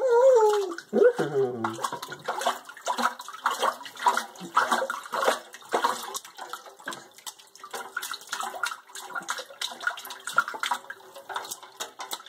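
Bathwater splashing in a kitchen sink as a baby slaps the water with his hands, in quick, irregular slaps. In the first two seconds a short voice slides down in pitch.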